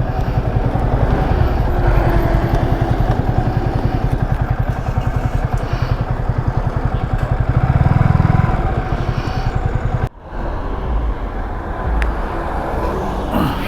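Yamaha R15's single-cylinder engine running with a rapid even beat, swelling briefly about eight seconds in. The sound breaks off for an instant about ten seconds in, then carries on more quietly.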